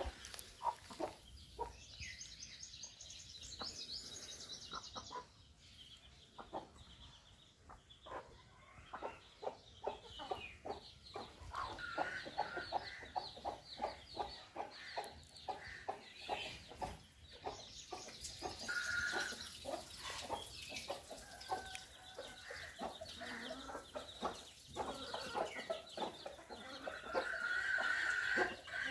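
Flock of backyard chickens clucking: a dense run of short clucks through most of it, with a few longer, higher calls standing out.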